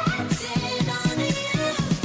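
Background music with a steady beat: low bass strokes about four a second under a pitched melody.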